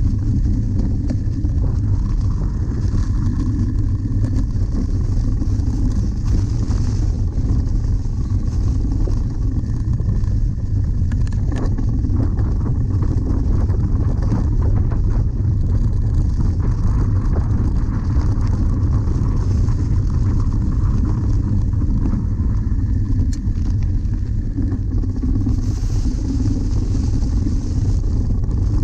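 Steady, loud low rumble of wind buffeting and ride vibration on a bike-mounted camera, with tyre noise as a cyclocross bike rolls over leaf-covered grass.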